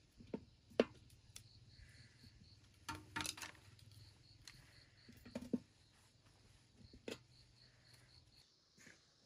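Insect chirping in a steady high pulse, about four a second, with scattered sharp knocks and clicks over it. A low hum underneath stops near the end.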